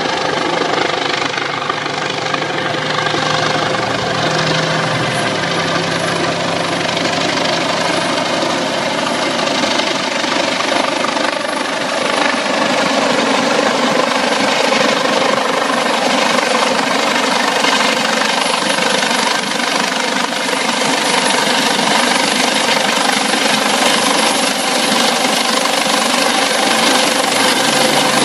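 Helicopter approaching low overhead, a steady rotor and turbine noise that grows louder about halfway through as it comes closer and descends.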